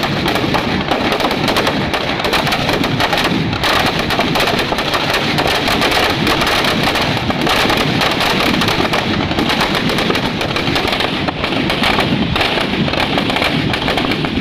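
Firecrackers packed inside a burning Ravana effigy going off in a dense, continuous crackle of rapid bangs.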